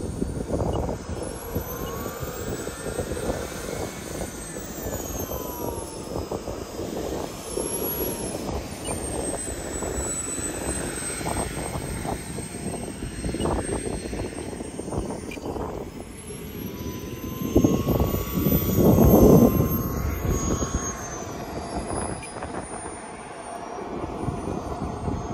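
Small jet turbine of a model F-86 Sabre whining on the runway, its pitch slowly rising and falling as it runs past and away, over a rough rushing noise that swells loudest about 18 seconds in.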